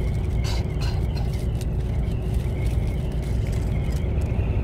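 Steady low rumble of a truck's engine and road noise heard from inside the cab while driving, with a couple of brief clicks about half a second and a second and a half in.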